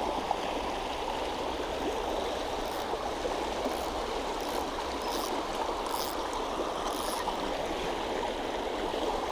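Shallow, rocky river running over stones in a steady rush of water, with a few faint high ticks now and then.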